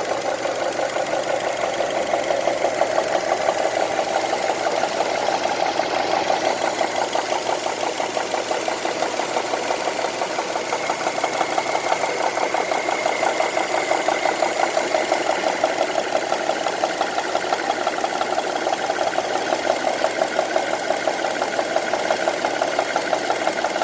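A 2002 Honda CR-V's four-cylinder engine running steadily, with a rapid, even ticking over the engine note.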